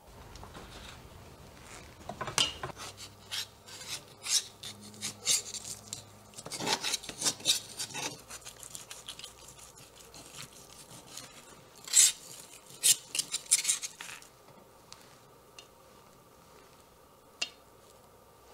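Metal kebab skewers scraping against a knife blade as grilled meat chunks are pushed off onto a metal platter: a run of sharp scrapes and clinks, the loudest about twelve seconds in. It tails off to a single click near the end.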